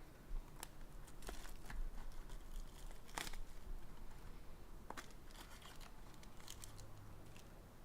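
Plastic shrink wrap crinkling and tearing as trading-card boxes are unwrapped, with scattered sharp clicks and taps of cardboard being handled.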